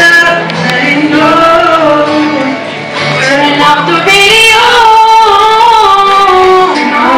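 Live acoustic pop song: a man and a woman singing into microphones over an acoustic guitar. The lower male voice leads first, and the woman takes over with long held notes about halfway through.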